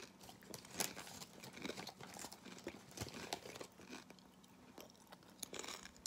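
A person chewing potato chips: soft, irregular crunches scattered throughout, over a faint steady hum.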